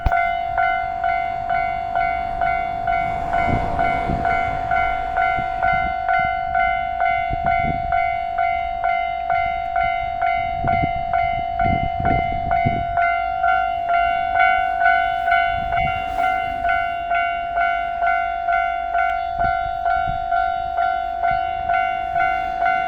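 A level crossing alarm rings a steady electronic ding-ding, about two strokes a second. A limited express Ozora diesel train runs through the crossing, its wheels thumping heavily over the rails for about ten seconds in the first half.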